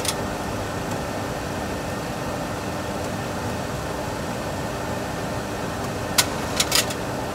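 Steady cockpit background noise of a Boeing 737 Classic full flight simulator in the climb, an even noise with a faint low hum. A sharp click at the start and three quick sharp clicks a little after six seconds.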